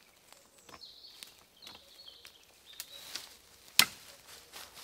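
Faint scattered clicks and a few short high chirps, then one sharp, loud knock near the end.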